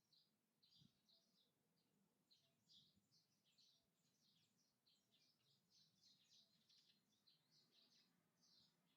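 Faint, continuous chirping of small birds: many short, high calls a few per second, overlapping.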